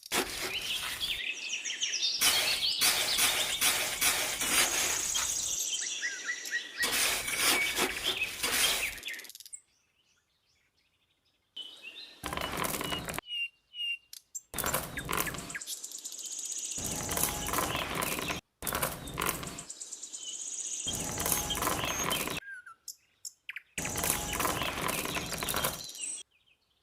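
Small birds chirping over a steady outdoor hiss, in several short stretches joined by abrupt cuts, with a couple of seconds of silence partway through.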